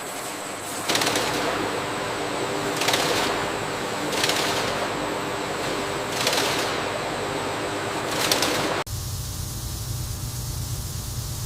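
Factory machinery running with a noisy hiss and a sharp clack or spurt about every one and a half to two seconds. About nine seconds in it cuts off suddenly, giving way to a steady low hum.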